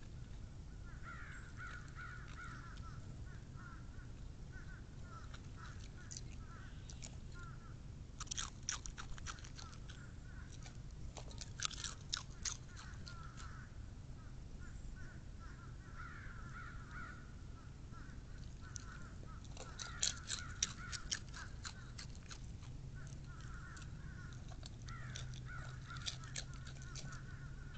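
Crows cawing repeatedly, unhappy at the red fox at the food. In between come several short bursts of crisp crunching as the fox chews potato chips from a metal bowl close by; the crunching is the loudest sound.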